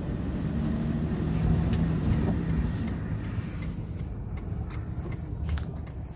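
A car driving: steady low engine hum and road noise, swelling slightly about a second or two in, with a few faint clicks in the second half.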